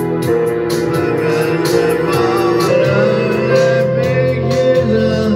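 Electronic keyboard playing sustained chords over a steady backing beat of light drum ticks, with a man's voice singing the melody.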